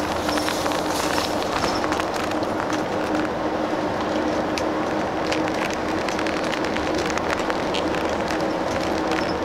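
Airport limousine coach bus under way, heard from inside the cabin: a steady drone of engine and road noise with a constant hum and small rattles.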